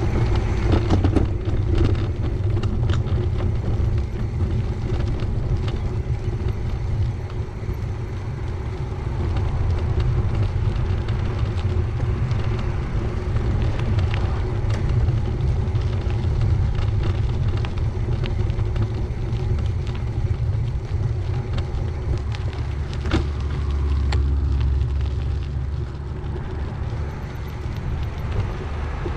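Bicycle rolling along a bike path: a steady low rumble with frequent small rattles and clicks. There is one sharper click about three quarters of the way through, and a deeper rumble swells for a couple of seconds soon after.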